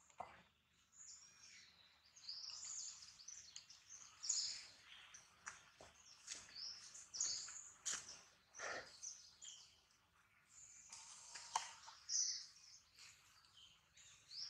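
Small birds chirping on and off in the surrounding trees, short high chirps scattered through every second or two, with a faint rustle now and then.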